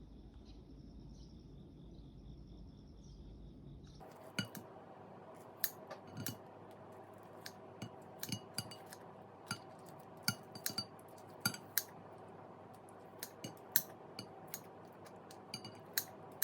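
Dishes, glassware and cutlery clinking in a kitchen, a quick run of irregular sharp clinks starting about four seconds in, over a faint steady hum.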